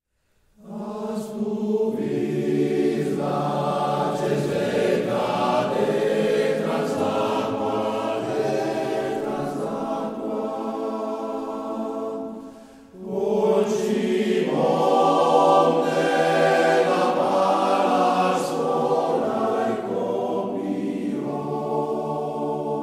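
A choir singing in long, held phrases. It pauses briefly about halfway through, then comes back in.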